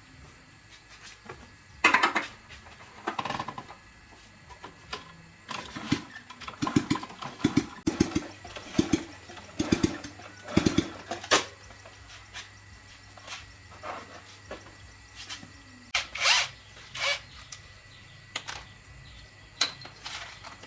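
Irregular knocks and clanks of hand-tool work on metal motorcycle parts, with a run of heavier thumps about two a second in the middle.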